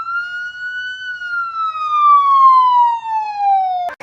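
One long pitched howl-like call. It swoops up, holds, then slides slowly down in pitch for about four seconds and cuts off suddenly just before the end.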